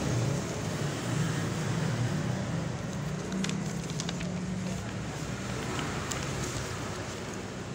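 Paper rustling and crinkling as a paper package is handled close to the microphone, with a few sharp crackles near the middle. A steady low hum runs underneath.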